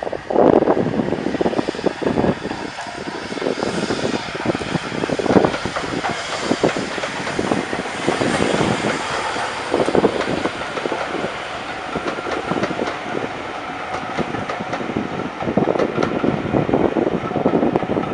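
Steam locomotive working past, working hard enough to throw up a steam plume, followed by its train of coaches rolling by on the rails.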